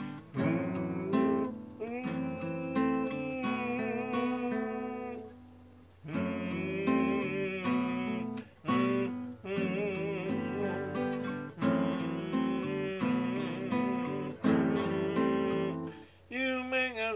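A man singing a song with vibrato over a strummed acoustic guitar, breaking off for about a second around five seconds in.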